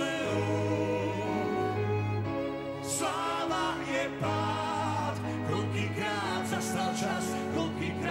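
Live band music with a string orchestra and grand piano, a singing voice wavering over sustained low bass notes.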